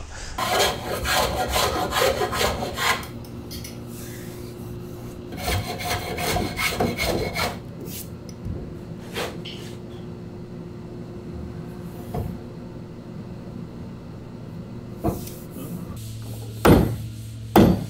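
A metal hand plane shaving a long wooden plank in quick scraping strokes, one run in the first three seconds and another about five and a half seconds in, over a steady low hum. Near the end come a few sharp knocks as a fist strikes a tool.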